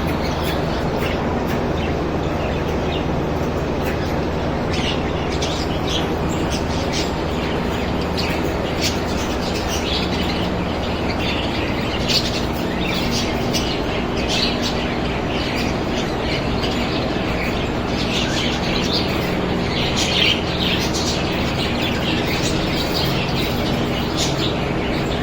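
Many caged birds chirping and twittering in short, overlapping calls over a steady low hum.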